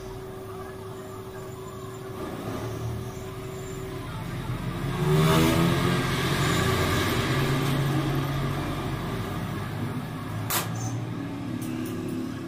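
Tractor engine running as it drives past, swelling sharply about five seconds in and staying loud for several seconds before easing off. A single sharp clank near the end.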